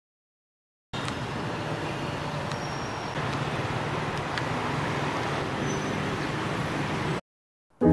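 Street traffic noise: a steady rumble of vehicles going by, starting about a second in and cutting off abruptly near the end.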